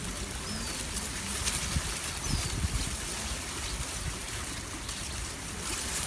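Steady river water noise with a low rumble underneath and a few faint clicks. Two short, high, falling bird chirps come in the first second and a half.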